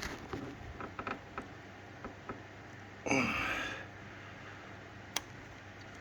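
Stainless-steel injector retaining clip being worked into place by hand: a few small metal clicks, a brief scraping creak as it is forced on, then one sharp click near the end.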